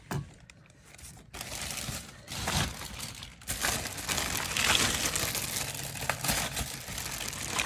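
Plastic packaging crinkling and rustling as stroller parts are handled, louder from about three and a half seconds in.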